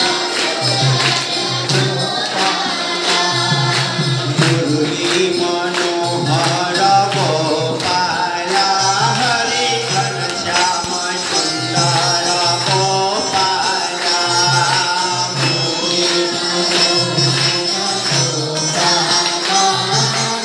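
A devotional Hindu bhajan sung by a male lead on a microphone with a group of children and men joining in, to rhythmic hand clapping and jingling metal percussion over a low, regular drum beat.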